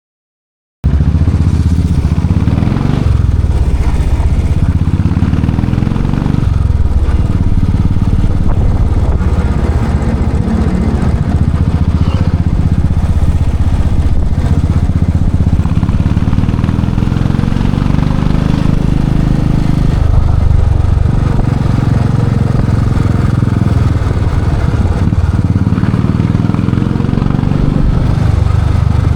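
Royal Enfield Classic 500's single-cylinder engine running loud through its exhaust. It comes in abruptly about a second in, then rises slowly in pitch and drops back several times, as when pulling through the gears and shifting.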